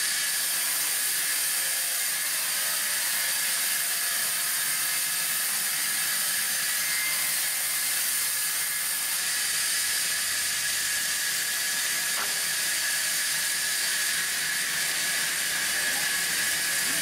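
Sawmill band saw running steadily, its blade cutting through timber with a continuous high hiss.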